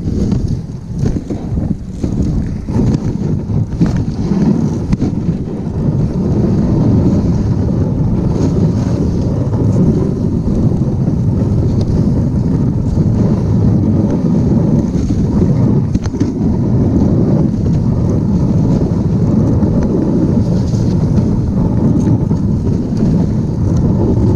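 Dog sled moving over a snowy trail: a steady rushing rumble of the runners on the snow mixed with wind buffeting the microphone, swelling over the first few seconds and then holding even.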